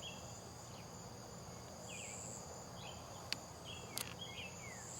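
Crickets trilling steadily at a high pitch, with short falling chirps now and then and two sharp clicks a little past three and at four seconds in.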